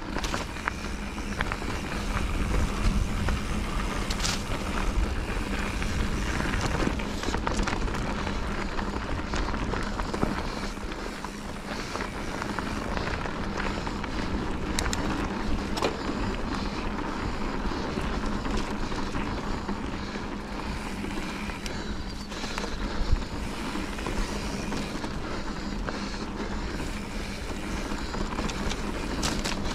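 Wind buffeting the microphone with a steady low rumble, as when moving fast outdoors, a faint steady hum running under it; scattered light clicks and one short knock about 23 seconds in.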